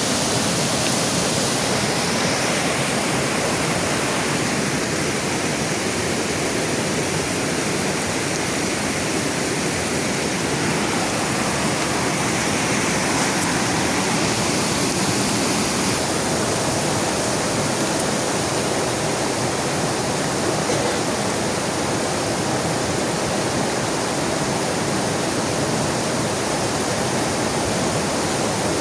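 Heavy rain pouring beside a flowing river: a steady, dense wash of water noise that does not change.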